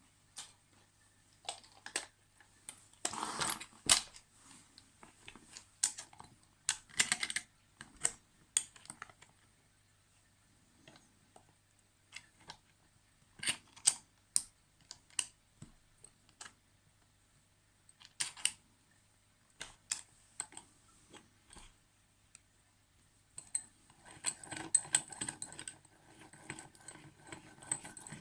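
Scattered sharp clicks and light metallic rattles from a Yale 713 disc-tumbler padlock and its keys being handled, with a denser run of rattling near the end.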